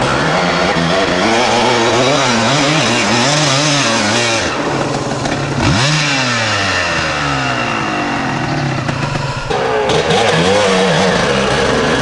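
Enduro dirt bike engines revving hard on a steep hill climb, the pitch swinging up and down in quick waves as the throttle is worked, with one sharp rise and fall about six seconds in.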